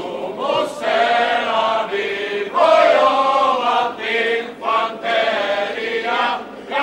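Group of men singing together in chorus, with drawn-out notes.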